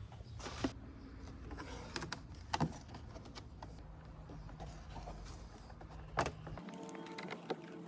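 A few sharp clicks and knocks from handling tools and truck parts while a side mirror is fitted, over a steady low rumble. The rumble cuts off abruptly about six and a half seconds in.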